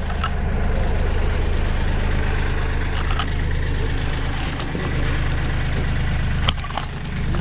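Bobcat compact tractor's engine idling steadily, with a few short knocks, the sharpest near the end.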